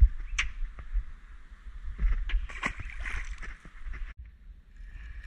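Clicks and knocks of fishing pliers and hands handling a caught black bream over the side of a small boat. A short splash follows about two and a half seconds in as the fish goes back into the water.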